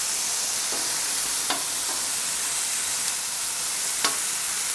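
Oiled vegetable pieces (mushrooms, zucchini, snack peppers) sizzling steadily on a preheated cast-iron griddle plate, frying hard. A few sharp clicks sound over the sizzle, the loudest about four seconds in.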